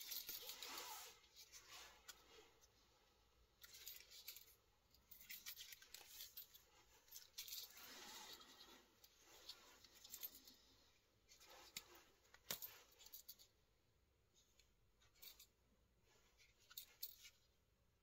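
Faint handling noise from a Victorinox Ranger 78 M Grip multitool pocket knife: intermittent scraping and rustling with scattered small clicks, one sharper click about twelve seconds in.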